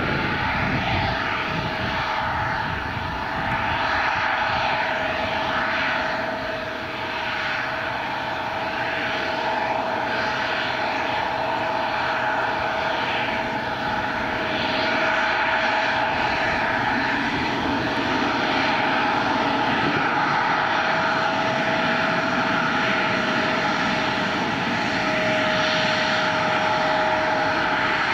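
Airliner engines running steadily: a constant whine over an even rushing noise.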